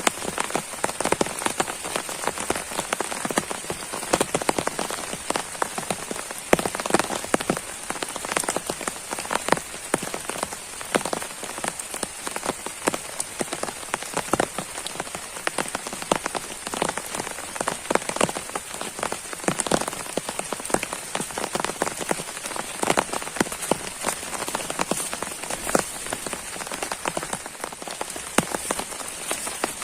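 Heavy pouring rain, with countless drops striking close to the microphone in a dense, steady hiss of impacts.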